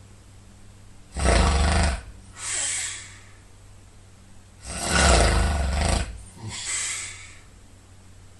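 A man snoring loudly in his sleep: two harsh, rattling snores about three and a half seconds apart, each followed by a softer, hissing breath.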